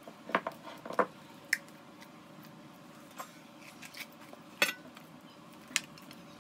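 Scattered short wet squelches and clicks of thick poornam paste, the sweet lentil-and-jaggery filling for bobbatlu, being scooped by hand off a stone grinding slab and dropped into a steel plate. The sharpest click comes a little over four and a half seconds in.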